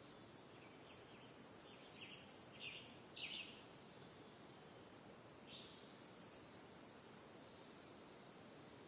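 Faint nature ambience of birds and insects: two rapid high trills of about two seconds each, with a few short chirps around the first, over a steady high thin tone.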